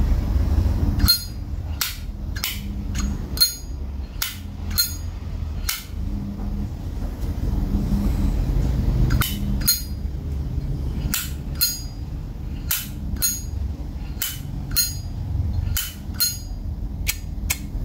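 Silver-plated 1994 Zippo lighter's hinged lid being flipped open and snapped shut over and over: about two dozen crisp metallic clicks, each with a brief ring, with a pause of a few seconds midway.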